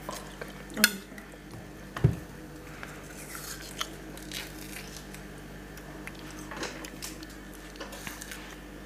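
Kitchen handling sounds around a plastic blender jug of cut fruit: two sharp knocks about one and two seconds in, then light clicks and rustling.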